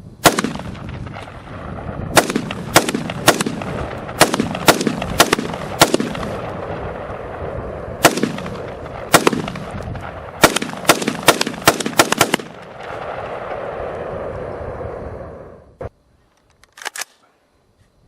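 AR-15 semi-automatic rifle firing steel-case .223 Remington rounds, about eighteen shots at an uneven pace: single shots at first, then quick strings of five or six near the middle and the end of the shooting. A single sharp click follows a few seconds after the last shot.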